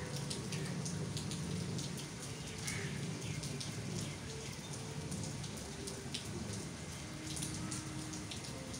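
Steady rain, with many single drops ticking close by.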